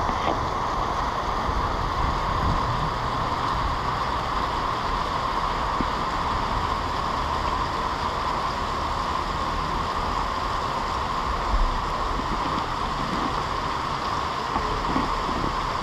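Steady rain falling on wet pavement and parked cars: an even, unbroken hiss with a low rumble underneath and a few faint taps in the second half.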